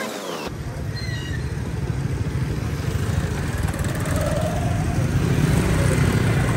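A road vehicle on the move: a steady low rumble that starts about half a second in.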